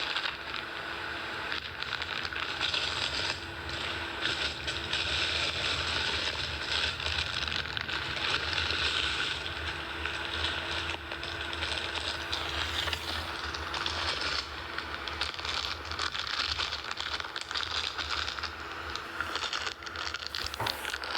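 Continuous rustling and crackling with many small clicks, over a steady low hum: handling noise of the kind that plastic-wrapped items being sorted make.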